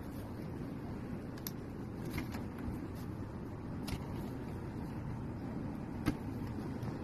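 A few scattered sharp clicks, about five, over a steady low rumble.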